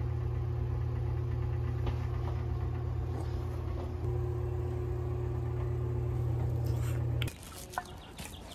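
Steady low mechanical hum from a running machine, with a faint steady tone above it. It cuts off abruptly near the end, leaving a few faint clicks.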